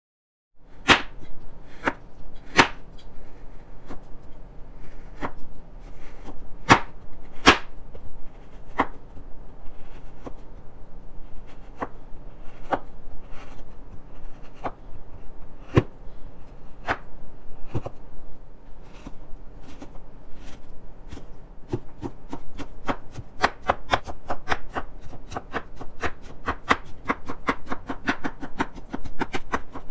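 A knife cutting through a firm, crumbly red-and-blue bath product on a cutting board. At first the cuts are separate sharp strokes about a second or more apart as it is sliced. In the last several seconds they quicken into rapid chopping as the slices are broken into crumbs.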